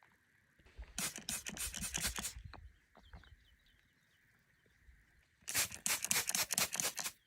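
Two bursts of scratchy scraping in dirt and stones while digging for agate, about a second in and again near the end, over a faint steady high hum.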